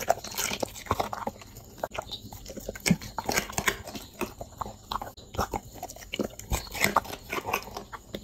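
Labrador chewing and crunching carrot pieces, with many irregular sharp crunches and clicks of its teeth.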